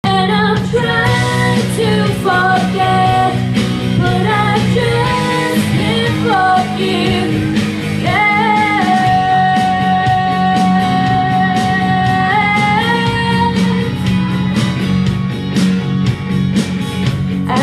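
A woman singing into a microphone over amplified backing music, holding one long note for about four seconds in the middle.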